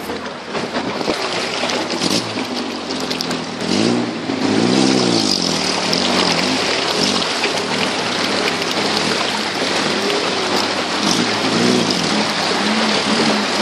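Off-road 4x4's engine revving up and falling back, once about four seconds in and again near the end, over the steady rush and splash of river water against the vehicle as it wades through.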